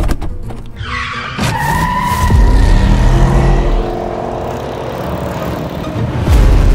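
Van pulling away hard: a few sharp clicks as the gear lever is shoved into gear, then a tyre squeal of about two seconds over the engine revving, with the engine swelling again near the end.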